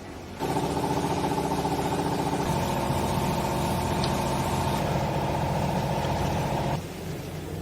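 Hydraulic baler's power unit, an electric motor driving a hydraulic pump, running steadily as the press works. It starts abruptly, changes tone partway through, and stops abruptly near the end, over a lower steady hum.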